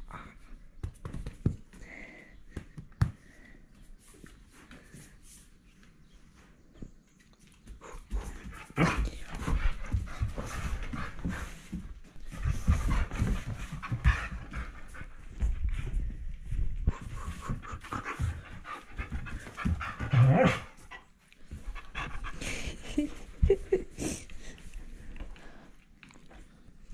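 Border collie panting hard and fast close to the microphone, in runs of quick breaths from about eight seconds in, mixed with bumps and rubbing as the dog pushes against the person. A few light clicks come before the panting starts.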